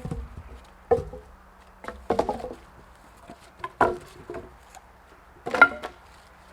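A handful of sharp, irregular knocks with a brief ringing tail, about one every one to two seconds, the last and loudest about five and a half seconds in; they have the character of wood being knocked or struck.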